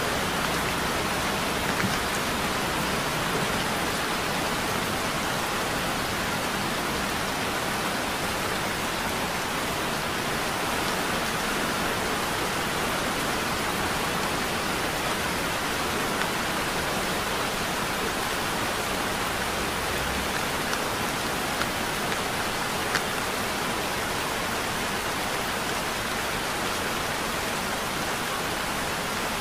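Heavy rain falling steadily, a dense even hiss with an occasional sharper tick of a single drop.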